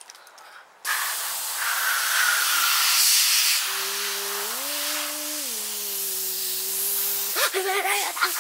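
Compressed air hissing steadily from an air-hose blow-gun nozzle, starting about a second in. Midway a steady hum-like tone joins the hiss, steps up in pitch, holds, and drops back. Near the end the hiss stops and a child's voice breaks in.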